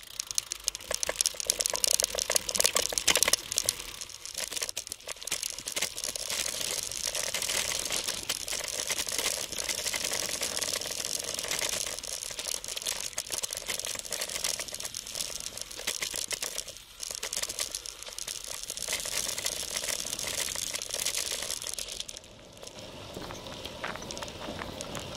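Cyclocross bike tyres crunching and crackling over a dry dirt and gravel trail, with the bike rattling, picked up by a bike-mounted camera's microphone. About 22 seconds in the sound dips and turns to a smoother hiss as the ride moves onto pavement.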